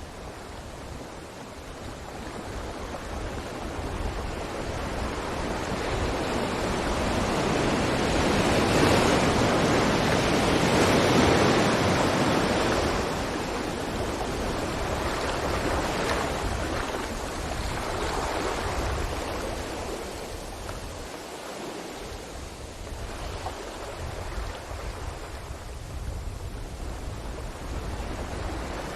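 Ocean waves breaking on a beach: the surf swells to a loud wash about ten seconds in and then slowly ebbs.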